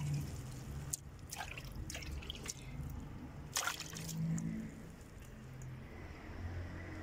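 Water dripping and trickling as freshly washed herb sprigs are handled, with a few short splashes about a second apart early on and one more after three and a half seconds.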